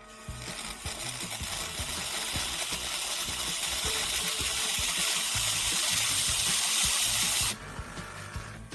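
Espresso machine steam wand hissing steadily and slowly getting louder, then cutting off suddenly near the end.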